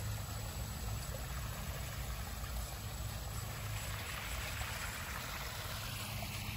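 Small backyard koi-pond waterfall running: a steady splashing trickle of water, with a low steady rumble underneath.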